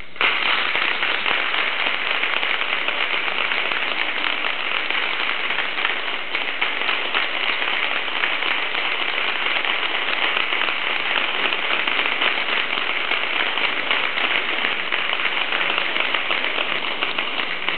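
Audience applauding: many people clapping, dense and steady.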